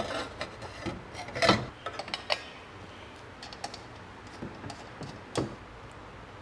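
Irregular small metallic clicks and taps from screws being undone and loose parts being handled on a miter saw, the loudest about a second and a half in.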